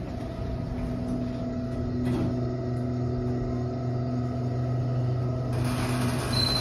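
KONE hydraulic elevator car travelling down, heard from inside the car as a steady low hum with rumble. About five and a half seconds in a hiss joins the hum, and a short high beep sounds near the end.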